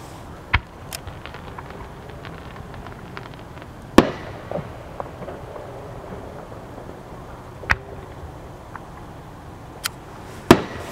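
Aerial fireworks shells bursting in a series of sharp bangs a few seconds apart, the loudest about four seconds in, with lighter cracks between them.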